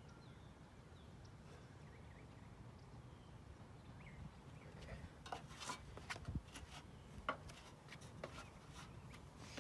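Faint steady low outdoor rumble; over the last few seconds a string of light knocks and clicks as the man moves away from the fixture, most likely climbing down a ladder after fitting the new floodlight bulb.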